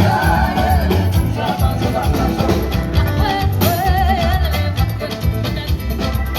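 Music with a steady bass beat and a wavering sung melody line.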